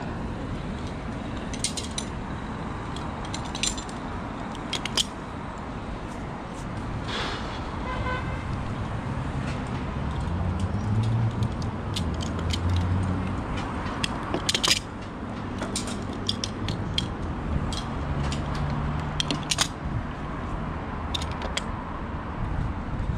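Metal carabiners of a climbing safety lanyard clicking and clinking now and then as they are unclipped and clipped onto a tall ship's rigging, over a steady outdoor background noise. A short pitched tone sounds once about seven seconds in.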